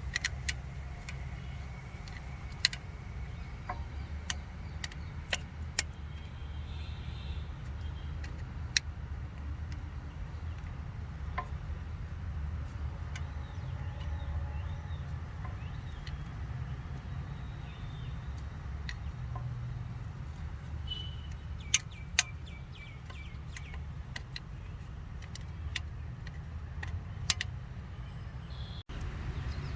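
Scattered sharp metallic clicks and taps from hand tools on the rear brake caliper's electronic parking brake motor as it is refitted with a T30 Torx bit, over a steady low hum.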